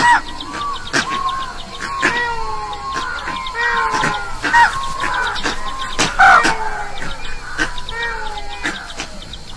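A chorus of animal calls: many short cries overlapping, each arching up and falling in pitch, several a second, with sharp clicks among them.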